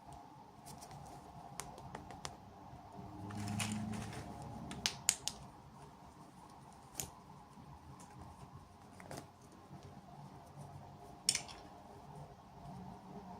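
Scattered small clicks and taps with a brief rustle, from handling small plastic toy pieces and packaging during unboxing.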